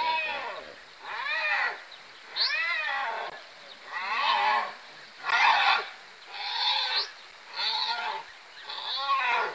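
A hyena held down by a lion squealing in distress: a series of about eight high, wavering cries, roughly one a second, each rising and then falling in pitch.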